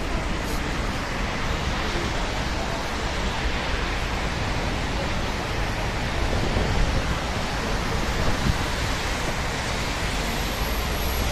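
Jet airliner's engines at takeoff power: a steady, loud, broad rushing noise with a heavy low rumble. Wind noise on the microphone is mixed in.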